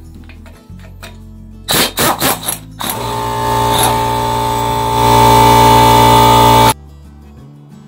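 Impact wrench on bolts at the back of an engine: four short bursts, then one run of nearly four seconds with a steady whine that grows louder before cutting off suddenly. Background music plays underneath.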